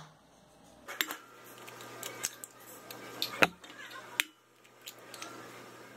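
Raw eggs being tapped and cracked open into a glass bowl: a few sharp clicks of shell on glass, the clearest about a second in and again about three and a half seconds in.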